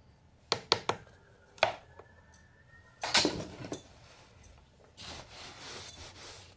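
Small hard parts clicking and knocking on a workbench as they are handled, with a cluster of knocks about three seconds in. Near the end a cloth rag rustles for about a second.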